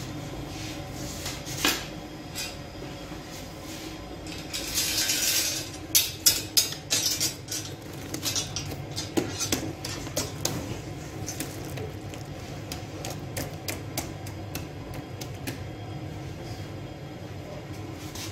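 A sangak baker's long iron peel and hook scraping and clinking against the hot pebble bed of the bread oven as the bread is worked and lifted out. A rushing scrape about five seconds in is followed by a quick run of sharp clinks and clatters that thins out, over a steady low hum.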